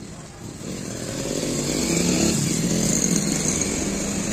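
A small engine running nearby with a steady pitched hum, getting louder from about half a second in and then holding.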